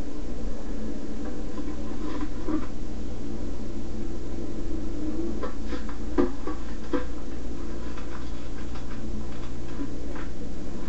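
Steady low hum with a few faint rustles and light knocks, as of a paper package being handled in the hands.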